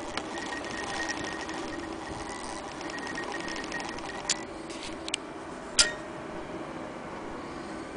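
Vintage Frister & Rossmann sewing machine running with a rapid, even ticking over a steady hum for the first two to three seconds, then stopping. A few sharp clicks follow, the loudest about six seconds in.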